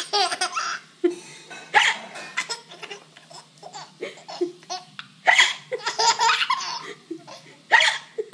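Baby hiccuping a few times, each sharp hiccup followed by giggling.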